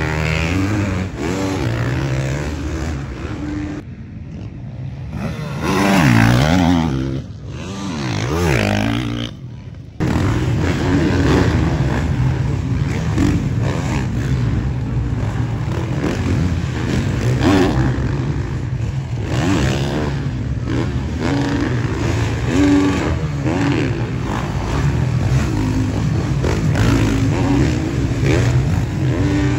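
Motocross bike engines revving hard through the turns, the pitch rising and falling with the throttle, with an abrupt change in the sound about ten seconds in.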